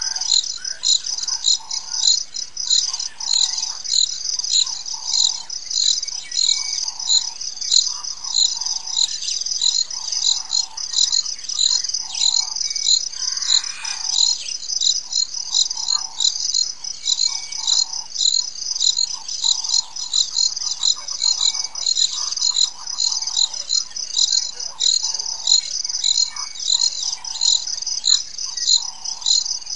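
Crickets chirping in a steady, evenly pulsed high chorus, with a lower call repeating about once a second underneath.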